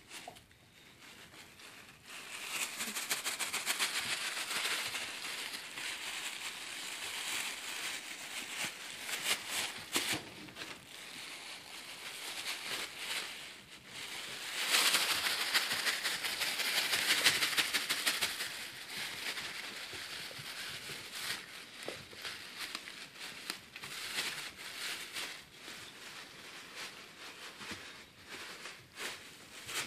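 Thin plastic sheet crinkling and crackling as puppies chew and tug at it. The crackling is loudest about halfway through.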